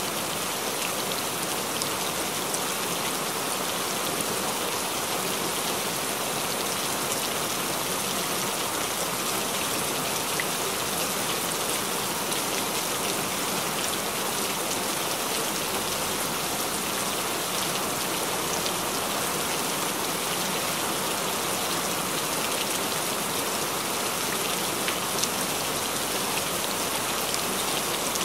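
Steady recorded rain, an even hiss of many fine drops that never changes. It is the masking bed of a subliminal track, with layered affirmations hidden under it.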